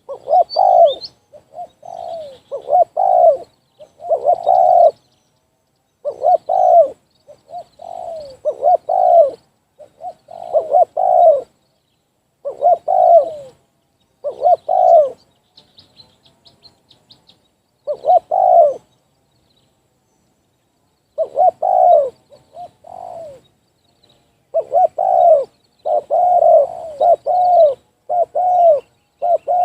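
Spotted doves (tekukur) cooing, a loud repeated series of phrases with short gaps and one longer pause about two-thirds of the way through. Faint high chirps of a small bird come in near the middle.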